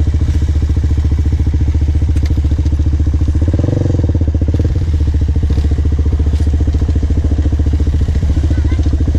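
Quad bike engine running close by, a steady, rapid low throb whose revs rise briefly about three and a half seconds in and again near the end.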